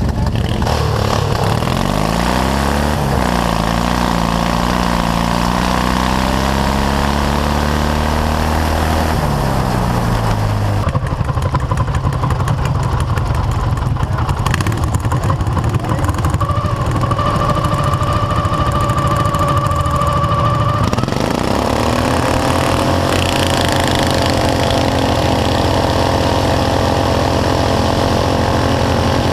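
Riding lawn tractor engines running and revving: the pitch climbs a few seconds in, holds, and drops back near the middle, then climbs again and holds steady. A steady high whine sounds for several seconds in between.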